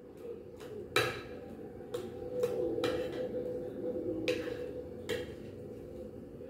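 Metal spoon clinking and scraping against a glass baking dish while spreading cream over a layer of biscuits, with a few sharp knocks, the loudest about a second in. A steady low hum runs underneath.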